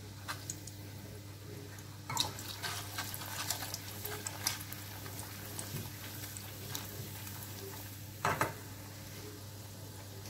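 Gulab jamun dough balls frying in ghee on a low flame: faint sizzling with scattered crackles, busier from about two to five seconds in. A short louder knock or scrape comes near eight seconds, over a steady low hum.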